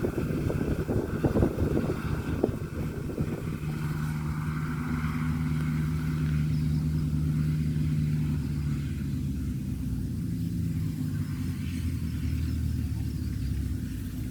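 Combine harvester engine running steadily at a constant pitch, with dense crackling during the first few seconds.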